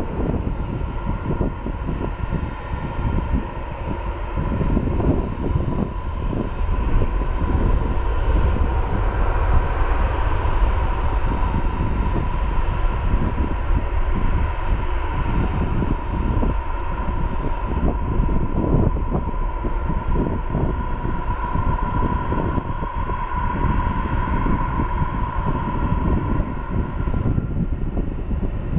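Boeing 777-200ER's two Pratt & Whitney turbofans at takeoff power as the airliner accelerates down the runway. A steady jet roar with a deep rumble and a constant whine above it swells slightly a few seconds in.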